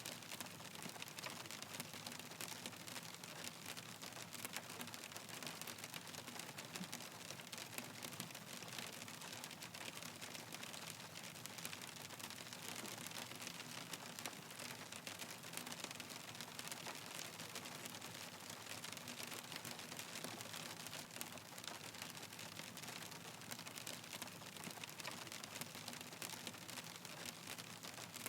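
Hailstones falling, a dense, steady patter of countless small clicks and ticks.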